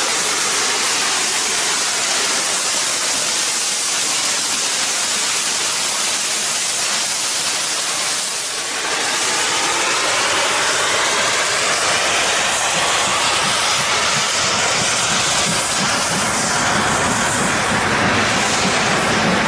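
LMS Jubilee class 4-6-0 steam locomotive passing with a steady hiss of steam. After a break about halfway in, another passing steam train takes over, its rumble and clatter of coaches growing toward the end.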